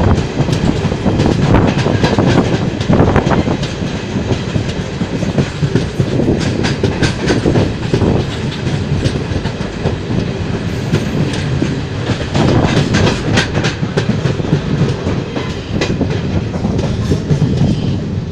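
Passenger train running at speed, heard from an open coach doorway: a steady loud rumble of wheels on rail with clusters of rapid clickety-clack as the wheels pass over the track.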